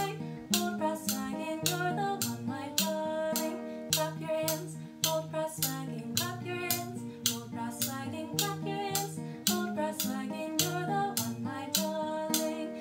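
A song with guitar and singing, with a pair of metal spoons held back to back and clacked together in a steady beat along with it.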